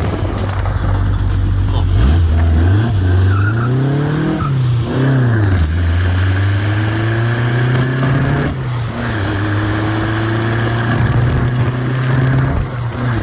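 Lotus Super Seven's 2-litre Ford overhead-camshaft engine revved up and back down a couple of times, then held at a steady engine speed.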